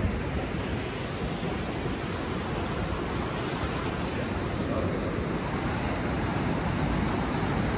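Steady rushing noise of ocean surf and wind, with a rumbling low end and no distinct events.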